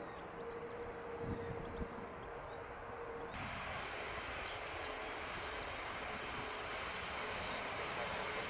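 Airbus Beluga ST's General Electric turbofan engines running as the aircraft moves on the runway: a steady whine over jet rush, the rush growing fuller and louder about three seconds in. A high chirping repeats about three times a second throughout.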